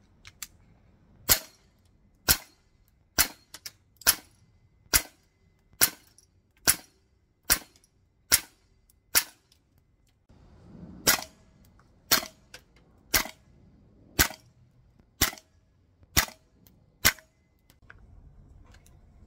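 Gas-blowback airsoft rifles firing single shots, about one a second: a run of about ten, then after a short break about seven more. Each shot is a sharp crack with the bolt cycling.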